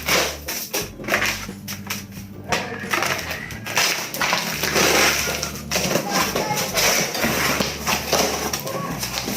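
Irregular clattering, knocking and rustling of objects being handled, over background music with a steady bass line.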